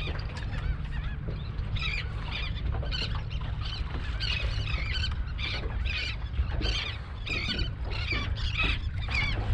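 A flock of seabirds calling over and over, many short overlapping calls a second, above a steady low rumble of wind on the microphone.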